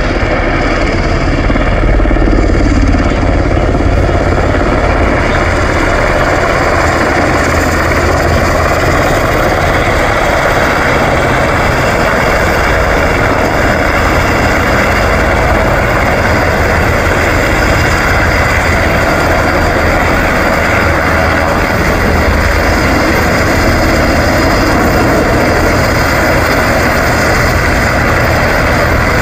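Firefighting helicopter hovering low over water to refill through its snorkel hose: turbines and main rotor running loud and steady, with a fast low beat from the blades and rotor wash on the water.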